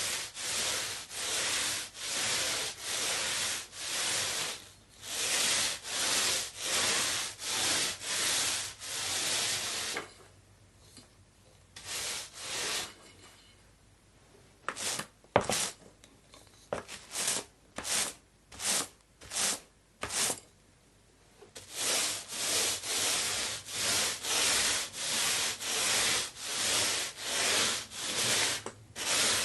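Paint roller rolled back and forth over a surface: rhythmic rubbing, hissing strokes about two a second. About a third of the way in the strokes stop for a few seconds, come back as short, separate passes, and then run steadily again near the end.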